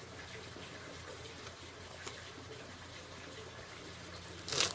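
Faint, scattered light ticks as small bits of fire starter are dropped from a lid into the top of a wood gasifier stove, with a short louder rush of noise near the end.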